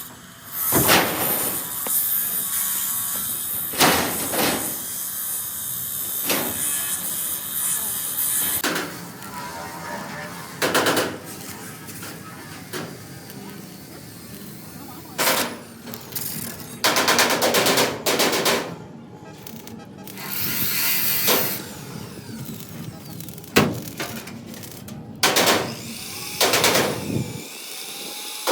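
Workshop power tool run in rapid rattling bursts that start and stop again and again, some short and one lasting over a second.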